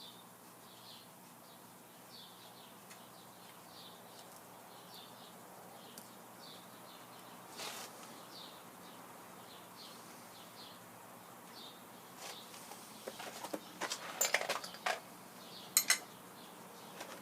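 Faint high chirps repeating a little more than once a second over a low steady hum, then, from about twelve seconds in, a run of sharp metallic clicks and knocks as hand tools and small parts are handled on the cast-iron gearbox.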